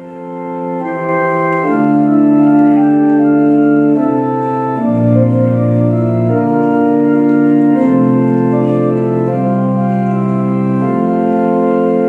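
Two-manual electronic organ playing slow, sustained chords that swell in over the first two seconds and change every second or two.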